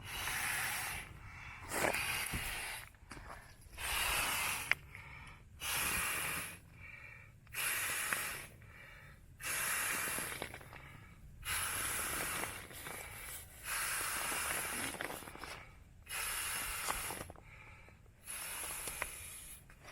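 A person blowing long breaths into an inflatable sleeping pad to inflate it by mouth, one puff about every two seconds, with short pauses between them.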